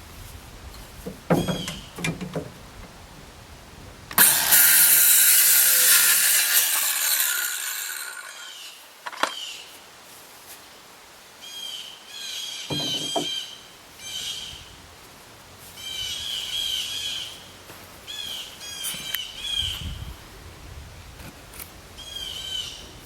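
A few sharp knocks, then a loud hiss that lasts about four seconds and fades. After that a bird sings short, repeated chirping phrases until the end.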